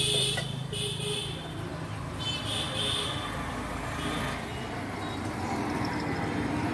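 Road traffic: a steady low engine drone with short, high horn toots about a second in and again around two and a half seconds.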